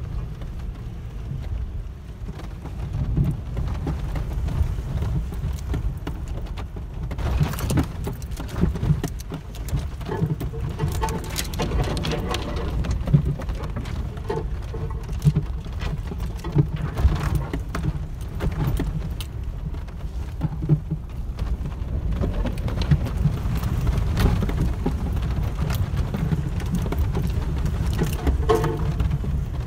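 Truck driving over a rough wooded dirt trail, heard from inside the cab: a steady low rumble of engine and tyres, with scattered knocks and rattles as it bounces over the ground.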